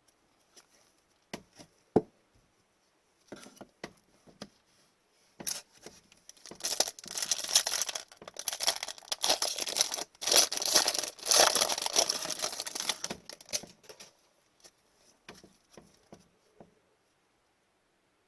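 Foil trading-card pack wrappers being torn open and crinkled: a dense crackling run from about six seconds in that lasts some seven seconds. Scattered light taps and clicks of card handling come before and after it.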